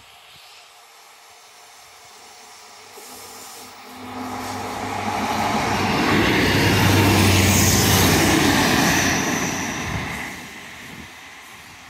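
Northern diesel multiple unit passing close over a level crossing. Its engine hum and wheel rumble build from about four seconds in, are loudest for a few seconds as it goes by, then fade as it runs away.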